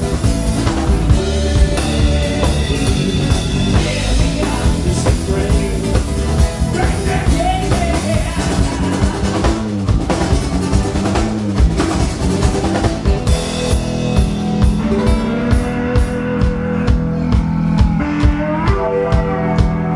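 Live rock band playing: drum kit, bass guitar and acoustic-electric guitar. About 13 seconds in the high cymbal wash thins out, leaving a steady drumbeat under the bass and guitar.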